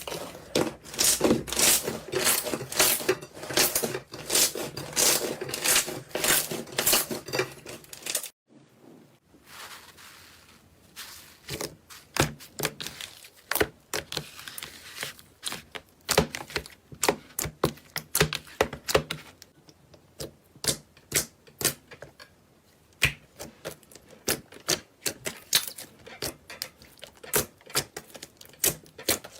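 Slime being squeezed and pressed, making rapid sticky clicking and popping crackles. There is a short break about eight seconds in, after which the clicks come sparser and more spaced out.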